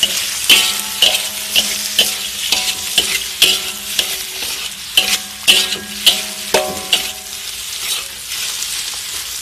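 Metal spatula scraping and knocking against a wok, each stroke leaving a short ringing tone, over the sizzle of egg, sausage and meatballs stir-frying. The strokes come about twice a second and thin out near the end.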